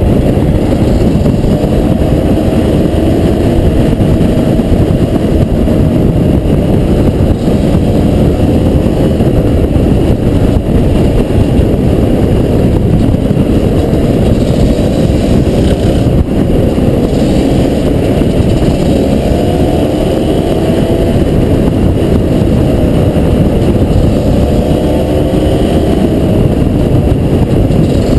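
Honda CRM250R two-stroke single-cylinder dirt bike engine running under way, its pitch rising and falling repeatedly as the throttle is worked.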